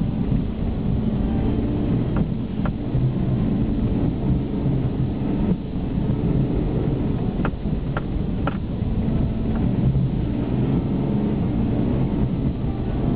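BMW E46 330xd's six-cylinder turbodiesel running under load as the car drives through deep snow, heard from inside the cabin as a steady low rumble. A few short sharp knocks come through, two about two seconds in and three more around the middle.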